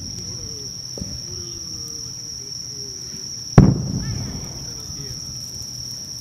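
A firework shell bursts with one loud boom about three and a half seconds in, trailing off over about a second, with a small pop about a second in. Under it runs a steady, high-pitched chirring of insects.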